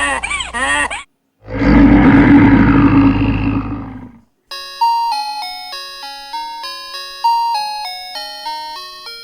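A few quick animal calls that rise and fall in pitch, then a loud, rough animal call lasting about three seconds. After a short gap comes a chiming melody of struck, fading notes, like a music box.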